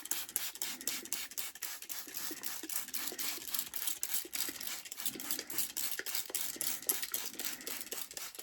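Hand spray bottle misting water onto moss in a tarantula enclosure: a quick run of short squirts, several a second, that stops abruptly at the end.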